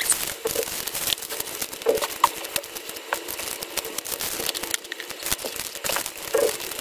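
Small clear plastic bags of beads crinkling and rustling as they are handled and packed into a plastic drawer, with irregular light clicks and taps.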